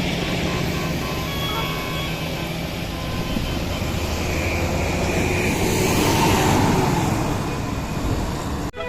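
Road traffic noise with a large vehicle's engine running as it passes, a few faint short horn tones in the first two seconds. The sound cuts off abruptly just before the end.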